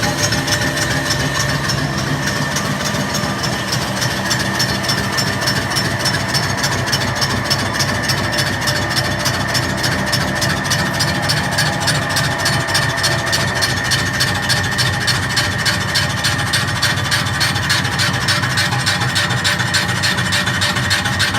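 CNC machine tool cutting a metal gate valve part: a steady scraping cut with a fast, even rasping pulse and a constant high whine.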